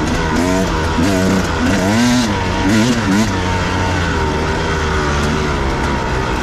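Husqvarna enduro dirt bike engine running while riding. The revs rise and fall again and again with the throttle, over a steady low hum and rushing noise.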